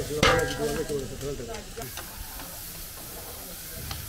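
Food frying in hot oil in a large cooking pot for Uzbek pulao: a steady sizzle with a few sharp clicks. Voices are heard briefly near the start.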